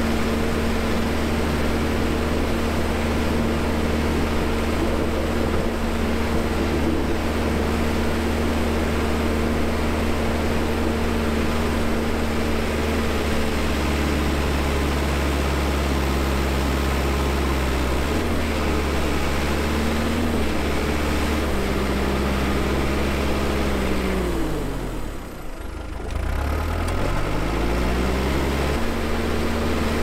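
Cat 420F backhoe loader's four-cylinder diesel engine running steadily under load while it pushes snow with a front pusher blade, its note shifting partway through. About 25 seconds in, the whole sound sweeps down in pitch almost to a stop and straight back up.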